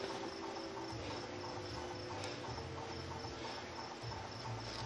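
Crickets chirping steadily in a continuous high trill, over a low steady hum.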